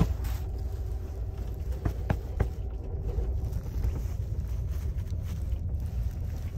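Steady low rumble of a moving Amtrak Superliner sleeping car heard from inside the roomette, with a few light clicks about two seconds in.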